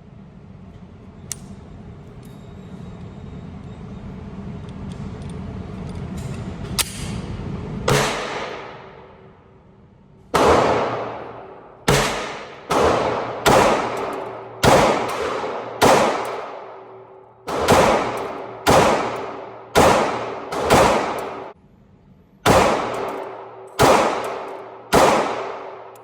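Ported compact pistols firing a string of shots, about sixteen, mostly a second or less apart with a few longer pauses; each shot rings out with a long tail. Before the first shot there is a low rumble that grows steadily louder.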